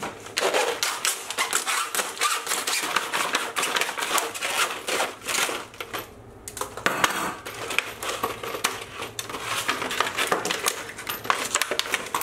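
Stiff clear plastic blister packaging being cut and pried open by hand, a dense run of crackles and clicks with a short lull about six seconds in.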